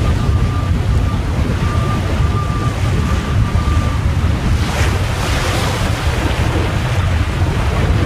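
Wind buffeting the microphone in a steady low rumble over the wash of sea water along a small sailing yacht's hull as it sails through choppy water, with a louder rush of spray about five seconds in.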